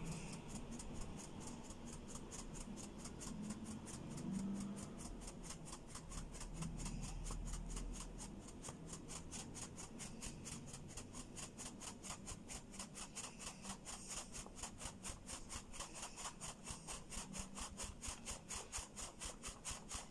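Wire-mesh sieve being shaken over a plastic bowl while flour sifts through: a faint, rhythmic rustle of about four shakes a second, steadiest in the second half.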